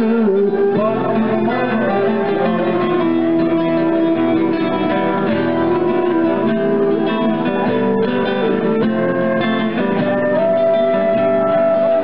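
Music: a song with a plucked string instrument and long held sung notes, changing pitch every second or two.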